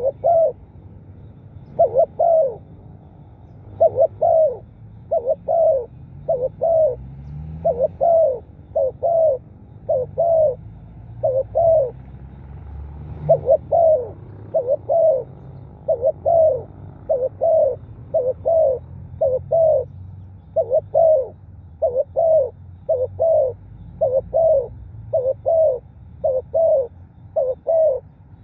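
Spotted dove cooing: short, low coos in quick pairs and threes, repeated over and over with brief pauses between groups.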